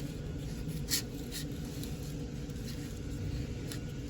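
A few faint clicks and scrapes of hands working with freshly mixed two-part epoxy, over a steady low hum.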